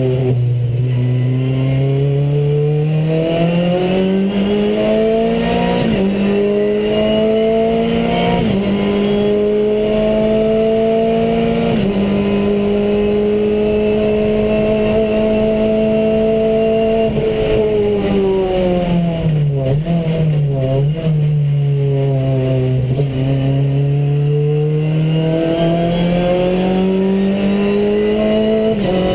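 Renault Clio Cup race car's four-cylinder engine heard from inside the cabin: it climbs through the gears with brief dips in pitch at the shifts about 6 and 8.5 seconds in, holds high revs flat out, then the revs fall with two short blips on the downshifts around 19 to 21 seconds in before it pulls hard up through the revs again.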